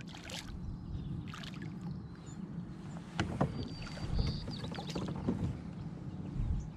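A kayak on calm water: light splashing and a few sharp knocks against the plastic hull, the strongest about three seconds in, over a low steady background.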